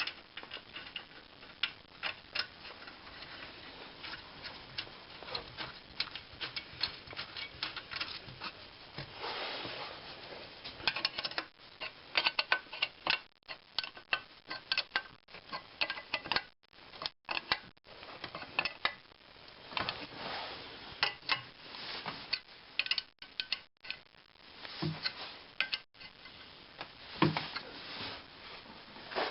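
Small metal parts clinking and tapping irregularly: hand work on a wood lathe, fitting its rear section and loosely starting the fasteners. The clinking is broken by several brief silences.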